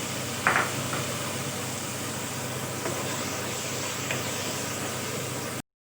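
Steady hissing sizzle of tomato and masala frying in oil in a pan, with a few light clicks of a stirring spoon. It cuts off abruptly near the end.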